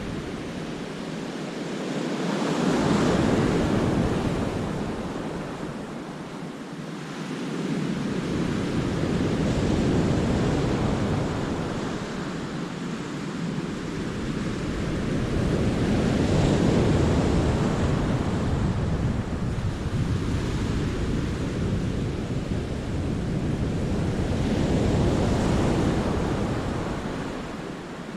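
Sea waves breaking in a rocky cove and washing back, swelling and fading about every six to eight seconds, with wind buffeting the microphone.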